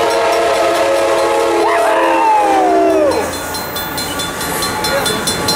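Horn of an Amtrak Pacific Surfliner diesel locomotive sounding one long chord for about three seconds at a grade crossing. Then the steady rumble of the train rolling through, with rhythmic wheel clicks near the end.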